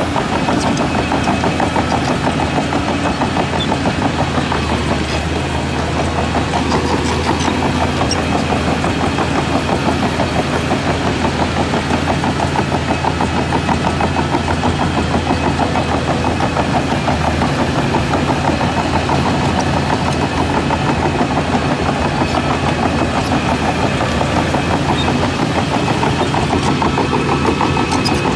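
Heavy diesel engine of earthmoving machinery running steadily at constant speed, with a fast, even firing pulse.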